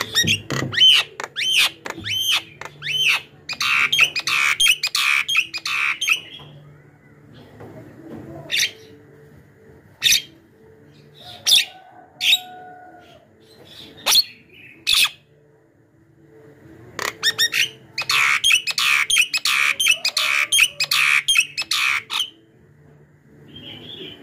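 Javan myna calling in full voice: two long runs of rapid, harsh chattering calls, separated by a stretch of single sharp calls and a brief whistled note.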